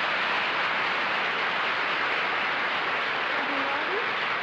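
Studio audience applauding steadily, a dense wash of clapping.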